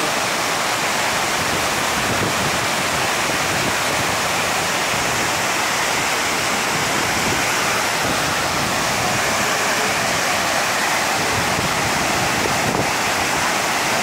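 Tortum Waterfall's cascades pouring into the plunge pool below: a steady, even rush of falling water.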